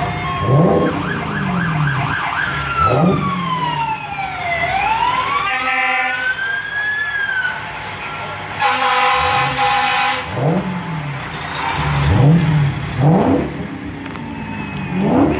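Vehicle sirens: one wail falls and then rises again in pitch, over short low up-and-down siren sweeps that repeat about once a second. A short horn toot comes near six seconds in, and a longer horn blast lasting about a second and a half starts about nine seconds in.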